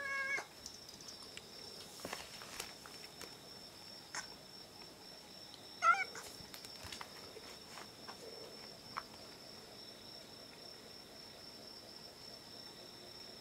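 Young orange-and-white cat meowing twice: a short meow at the very start and a louder one about six seconds in. Crickets chirr steadily behind it.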